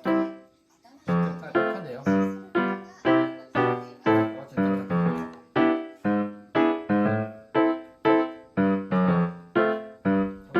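Background piano music: a bright melody of evenly spaced notes, about two a second, each dying away, after a brief pause right at the start.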